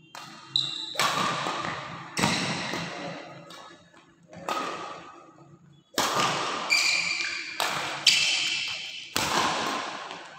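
Badminton rally: sharp racket hits on the shuttlecock, roughly one a second, each ringing out in the echo of a large hall.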